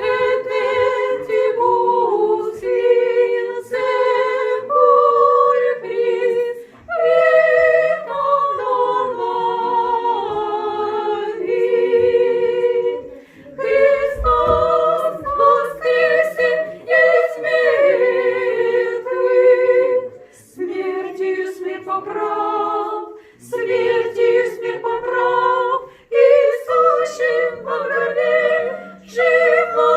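Russian Orthodox church choir singing liturgical chant a cappella, in phrases with short pauses between them.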